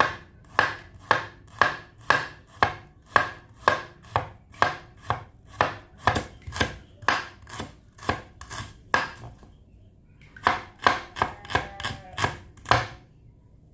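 Knife chopping food on a cutting board in steady strokes, about two a second. After a pause of about a second comes a quicker run of chops, which then stops.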